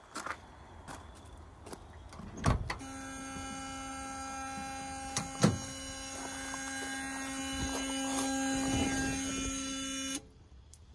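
A 1971 Dodge Dart's key-in-ignition warning buzzer sounding as one steady buzz for about seven seconds. It starts just after a knock from the driver's door opening and cuts off suddenly as a hand goes to the ignition key. A second knock comes partway through.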